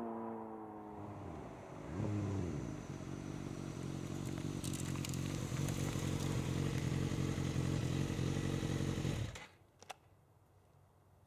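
Suzuki GSX-R 1000 inline-four engine dropping in revs with a falling pitch, then rising briefly about two seconds in and running steadily until it cuts off suddenly near the end.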